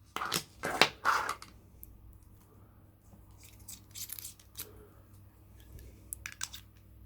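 Handling noises as a battery is fitted into a small pocket torch: a few short rustling scrapes in the first second and a half, then faint light clicks.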